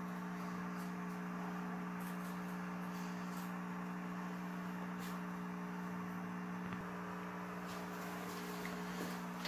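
Steady electrical hum made of several low tones, over a faint hiss, with a few faint clicks.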